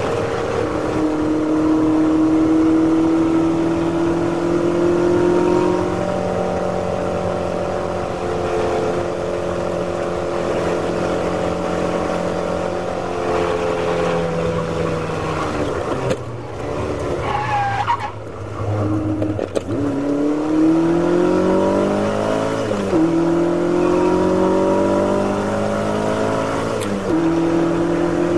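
Ferrari V8 race car engine heard from inside the cockpit, pulling hard with the pitch climbing steadily. About two-thirds through it lifts off and drops in pitch as the car slows for a corner, with a brief wavering tyre squeal. Then it accelerates again, the pitch rising and falling back twice at gearchanges.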